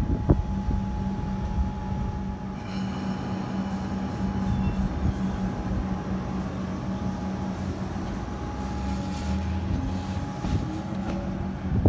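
Comeng electric suburban train standing at a platform, its onboard equipment giving a steady hum with a thin high whine above it. There is a single sharp click just after the start.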